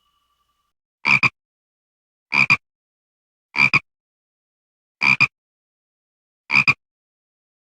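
A single frog croaking five times, evenly spaced about every second and a half, each croak a short double pulse.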